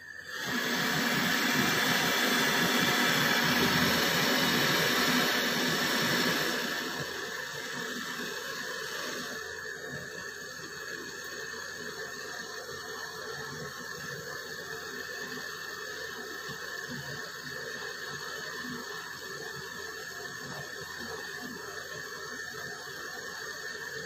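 Handheld gas torch on a disposable gas canister hissing steadily as its flame brazes a copper refrigerant-pipe joint on an air conditioner. The hiss is louder for the first six seconds or so, then settles lower.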